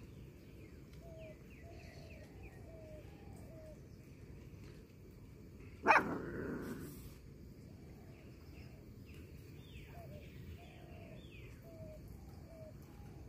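A dog barks once, loudly and suddenly, about six seconds in. Faint runs of short, falling calls come before and after it.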